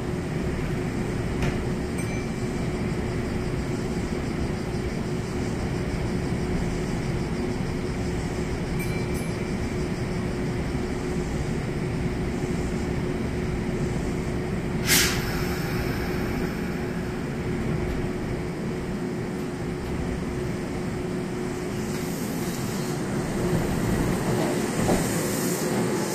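Kintetsu express electric train (5200-series set coupled to a 1437-series set) standing at the platform, its onboard equipment humming steadily with one short sharp hiss about halfway through. Near the end it starts to pull away, the sound growing louder with a rising motor whine.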